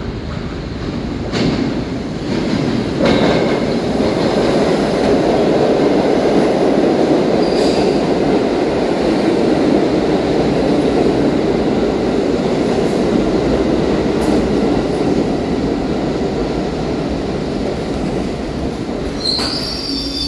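IRT subway train of R62A cars pulling into an underground station. A loud steady rumble of wheels on rail swells as the cars come alongside, with a few sharp clicks over the rail joints. A high squeal starts near the end as the train slows to a stop.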